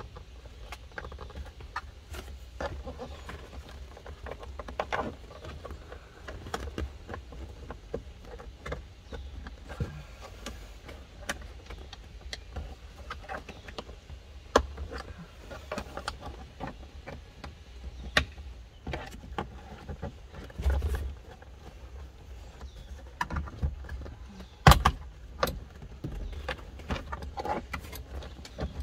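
Plastic seat-side trim cover being pried and pulled off with a flat pry tool. Scattered clicks, knocks and creaks come as its retaining clips work loose, with a few sharper snaps, over a low steady rumble.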